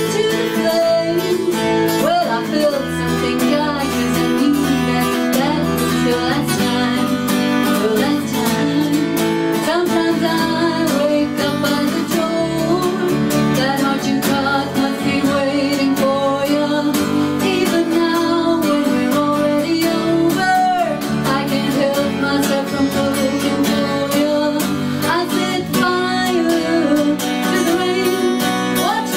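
Live cover-band music: a woman singing the melody over a strummed acoustic guitar and sustained chords and bass notes from a Roland keyboard.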